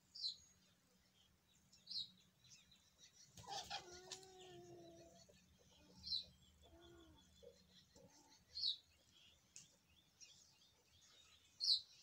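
Faint, high, short peeps of chicks, repeating about every two seconds, with a lower, longer call about three and a half seconds in.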